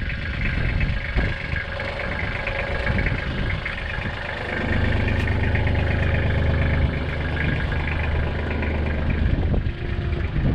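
Small excavator's diesel engine running, with its low hum growing louder and heavier from about halfway in until near the end, as if under load.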